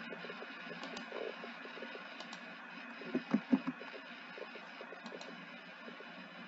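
Computer mouse and keyboard clicking: a few light clicks over a steady background hiss and hum, with a short cluster of duller, louder knocks a little past three seconds in.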